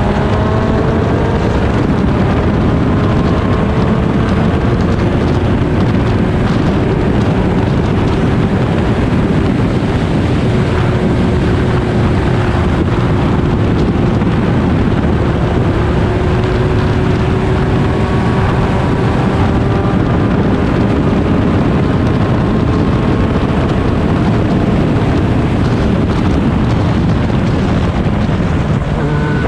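Onboard sound of a single-seater race car's engine under load at racing speed, its pitch climbing slowly through long pulls, with wind noise on the microphone. Near the end the revs drop sharply.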